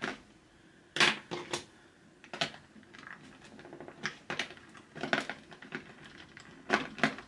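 Clicks and taps of a small skincare jar being worked at in a tight packaging insert, coming irregularly in small clusters.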